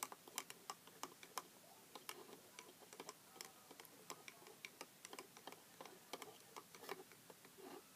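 A small spoon stirring Nesquik powder into milk in a tiny toy mug, clinking faintly and irregularly against the mug's sides, several light ticks a second.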